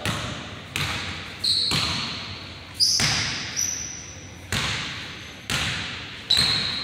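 A basketball bouncing on a hardwood gym floor, about seven irregular bounces, each with a long echoing decay. Between them come high-pitched sneaker squeaks on the floor.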